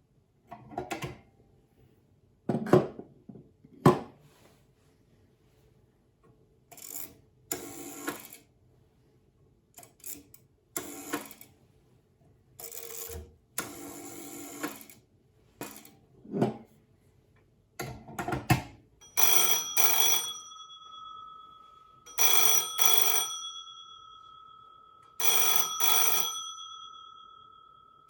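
Clicks and short rattling noises from handling the Ericsson DE502 telephone and its rotary dial. Then, from about two-thirds of the way in, its mechanical bell rings loudly in short double bursts about every three seconds.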